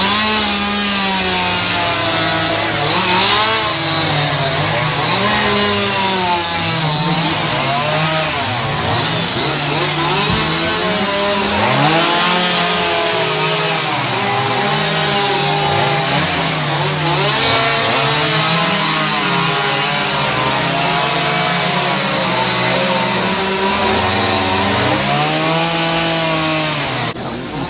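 Several chainsaws running at once as carvers rough out wood blocks, their engine pitch rising and falling with the throttle as they cut. The sound drops suddenly near the end.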